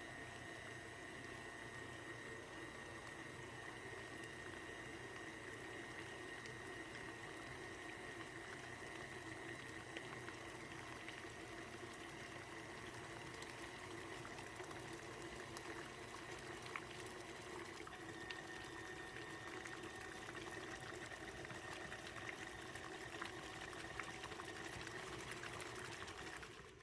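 Stand mixer motor running steadily with a whine while churning cream that has broken into butter, with buttermilk sloshing in the bowl. The motor stops right at the end.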